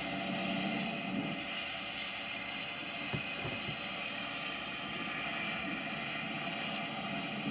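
Heavy farm machinery running steadily, a diesel engine's even drone with a mechanical whir.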